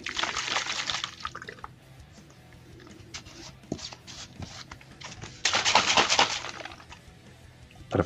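Water sloshing in a plastic shaker bottle as L-arginine powder is mixed in: a splashing swirl at the start that dies away, a few small clicks as the lid goes on, then about a second of hard shaking a little past halfway.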